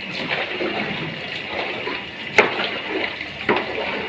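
Wet, squelching sloshing as fish pieces are mixed by hand into a runny egg-and-spice marinade in a bowl, with two sharp knocks against the bowl a little past halfway.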